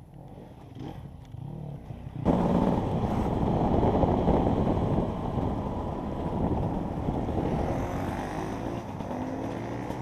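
Enduro motorbike engine running hard. It comes in suddenly and loud about two seconds in, carries on, then eases off near the end.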